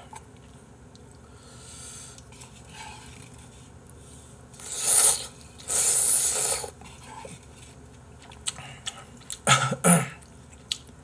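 A person slurping ramen noodles, two loud slurps in quick succession about halfway through. Two shorter, sharper mouth sounds come near the end.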